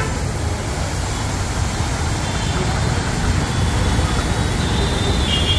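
A three-piston high-pressure washing pump driven by a 1.5 HP motor runs steadily, its jet of water hissing from the hose nozzle, with street traffic mixed in. A vehicle horn sounds near the end.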